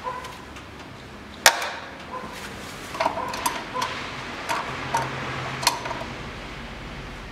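Metal clinks and knocks from a large pliers-type oil filter wrench clamped on a stuck, overtightened oil filter housing cap: about seven sharp strikes, several with a brief metallic ring, the loudest about one and a half seconds in.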